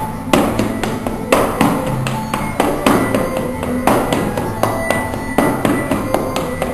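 Flatfooting: a dancer's feet striking the floor in quick, rhythmic taps and stomps, with music playing along underneath.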